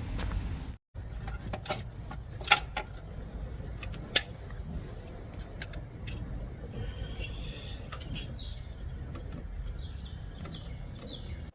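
A few sharp metallic clinks of tools and engine parts being handled during reassembly of an EGR valve, over a steady low background rumble. Birds chirp in the second half.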